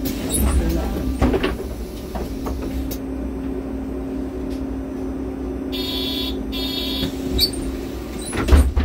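A MAN Lion's City NL253 Hybrid city bus heard from inside the passenger cabin: a steady hum over a low rumble, with rattles and knocks near the start and again near the end, and two short bursts of hiss just past the middle.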